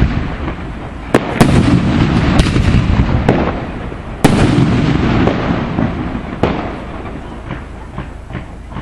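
Aerial fireworks going off: a series of sharp bangs, the loudest about four seconds in, over continuous crackling and rumble. The bursts thin out to smaller pops near the end.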